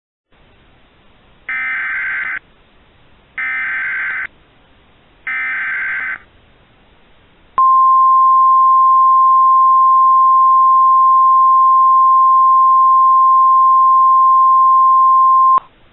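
Emergency Alert System SAME header: three one-second bursts of warbling digital data tones, then the NOAA Weather Radio warning alarm, a single steady 1050 Hz tone held for about eight seconds that cuts off sharply.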